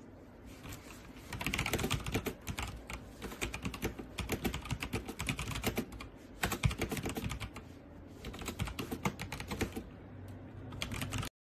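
Typing on a mechanical keyboard fitted with Kailh Box switches: fast runs of keystroke clicks with brief lulls between them, stopping abruptly near the end.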